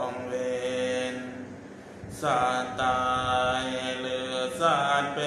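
Buddhist morning chanting by a group of voices in unison, with long held notes. It dips briefly about two seconds in, then the voices come back in louder.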